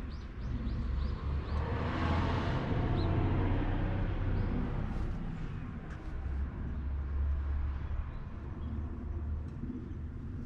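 A vehicle passes by, its noise swelling and fading over a few seconds, over a steady low rumble. A quick run of high chirps comes near the start.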